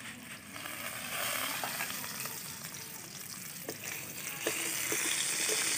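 Diced potatoes with turmeric frying in hot mustard oil in a metal kadai: a steady sizzle that grows louder about a second in, once the lid is off, and again near the end. A steel spatula stirs and scrapes the potatoes, with a few light clicks against the pan as they are browned.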